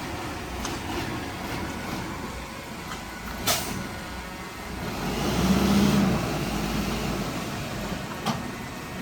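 Diesel engine of heavy earthmoving machinery running. There is a brief sharp hiss about three and a half seconds in, and the engine swells louder from about five to six and a half seconds, as if under load.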